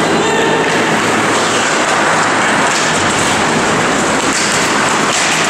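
Loud, steady noise of an ice hockey game in a rink, with no single sound standing out.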